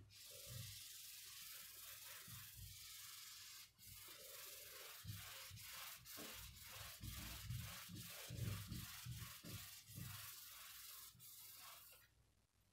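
A cloth duster rubbing marker writing off a board in repeated back-and-forth wiping strokes. The scrubbing stops about a second before the end.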